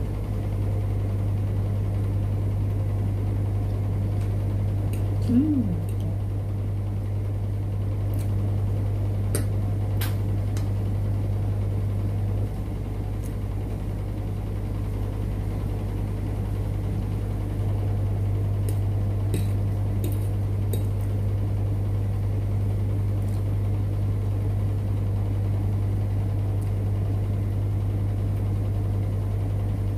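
A steady low hum runs throughout, with a few faint clinks of a metal fork against a plate and a brief falling squeak about five seconds in.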